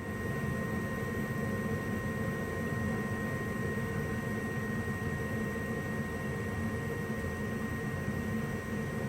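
Gas furnace running with its burners lit and blower fan going: a steady rushing hum with a thin high whine over it.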